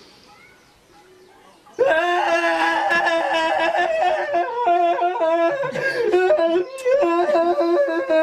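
A man's loud, drawn-out wailing in a high voice, starting about two seconds in and held in long notes, with a short break in the middle: an exaggerated comic cry.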